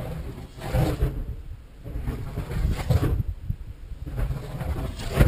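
Kinetic K2M dynamic soaring glider whooshing past at high speed, three swelling passes about two seconds apart, the last the sharpest. Under them a low gusty rumble of wind on the microphone.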